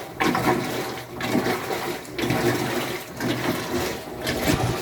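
Washing machine agitating water in its tub: a steady sloshing and swishing that swells and breaks off about once a second as the agitator reverses.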